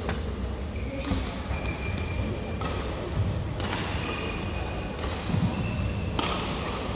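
Badminton racket strings striking a shuttlecock during a rally: about five sharp cracks at uneven gaps of one to two and a half seconds, over the low steady hum of a large hall.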